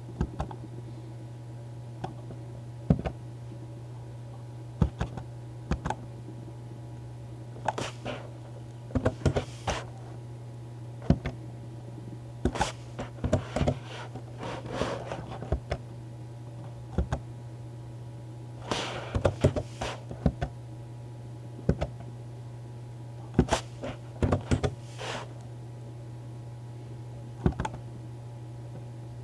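Computer keyboard typing in irregular bursts of clicks and taps over a steady low hum.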